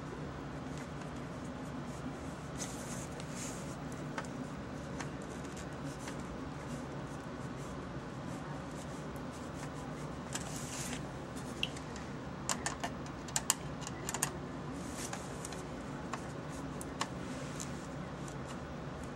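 Scattered light clicks and taps from small parts being handled and fitted together, with a cluster of sharper clicks a little past the middle and a few brief scrapes, over a steady low hum.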